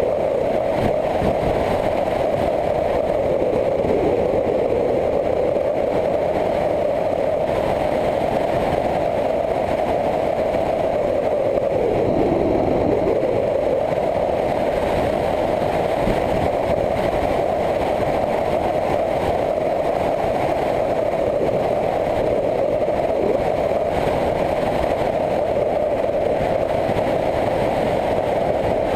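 Motorcycle engine running at road speed with a steady rush of wind noise. The engine note drops and picks up again about four seconds in and once more around twelve seconds in.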